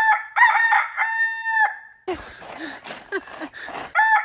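A rooster crowing: a crow of short rising notes ending in a long held note, followed by a rough, noisy stretch, with an identical crow starting again at the very end.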